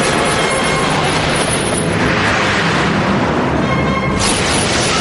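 Dramatic soundtrack music over a dense, steady rushing rumble of action sound effects, swelling about halfway through.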